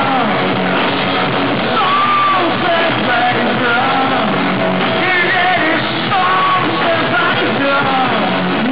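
Live rock band playing loudly: electric guitars and drums under a sung vocal line.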